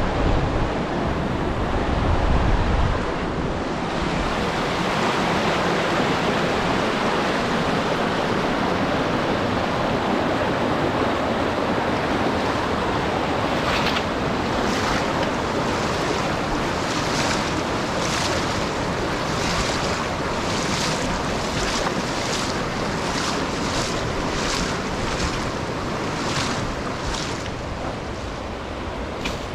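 Steady rush of a flowing river, with wind buffeting the microphone in the first few seconds. From about halfway, regular scuffing footsteps, roughly one and a half a second, join it.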